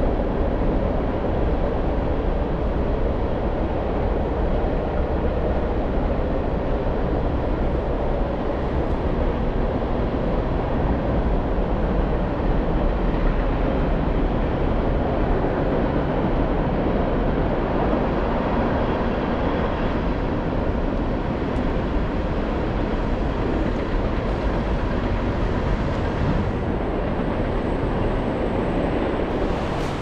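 Steady roar of rushing, cascading water, even and unbroken throughout.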